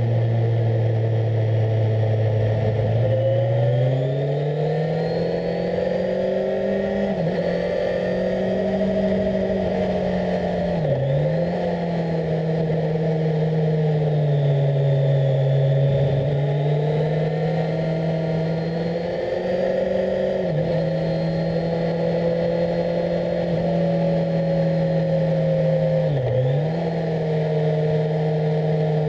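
Kawasaki Z1000SX inline-four engine heard on board while riding. About three seconds in, the engine note rises in pitch as the bike accelerates. It then holds fairly steady, with two brief dips in pitch, one near the middle and one near the end.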